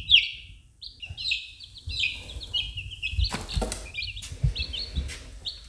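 Several baby chicks peeping: many quick, high, falling peeps. A few brief knocks come around the middle.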